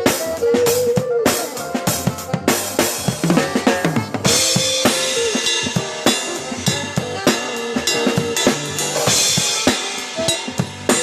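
Band playing during a sound check, with the drum kit out front: kick and snare hits, plus some sustained pitched notes underneath. Cymbals join with a bright wash about four seconds in.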